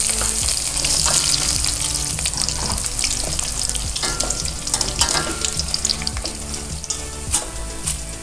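Okra and freshly added curry leaves sizzling and spattering in hot oil in a steel kadai. The sizzle is strongest at first and slowly dies down, with scattered clinks of a metal utensil against the pan.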